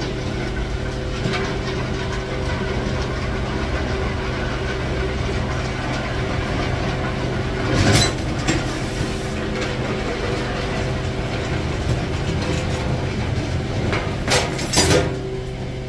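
Steady mechanical drone of a car transporter's engine and winch as the winch drags a car up the steel bed. A short knock about 8 seconds in and a few more near the end.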